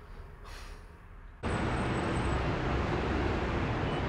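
Faint room tone, then about a second and a half in a steady road-traffic noise starts abruptly and runs on evenly, with a deep rumble.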